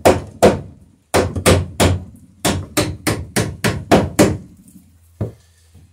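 Hammer driving nails through a pine garboard plank into a wooden boat's bottom: about a dozen sharp blows in quick runs of roughly three a second, with a short pause about a second in and one last lighter blow near the end. The nails are going in easily, drawing the plank tight to the bottom.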